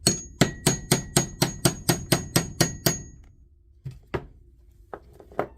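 A small hammer tapping metal, a quick even run of about thirteen ringing strikes over three seconds, then a few lighter single knocks: the cap of the angle grinder's spindle lock being tapped into place.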